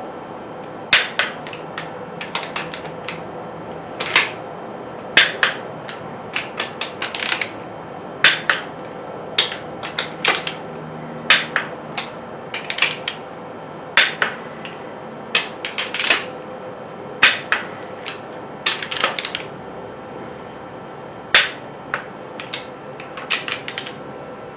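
Torque wrench and socket on the ARP head bolts of a small-block Chevy 350, clicking and ratcheting in sharp irregular clicks, singly and in quick runs: a final check that each head bolt is torqued to 70 ft-lb.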